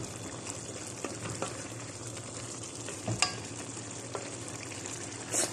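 Pan of chicken menudo stew simmering with a steady hiss, while a wooden spatula stirs it and knocks against the pan a few times, the sharpest knock about three seconds in.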